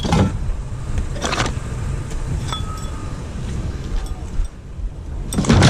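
Metal clinks and a brief ringing tone from a bladeless ceiling fan being handled, over a steady low rumble.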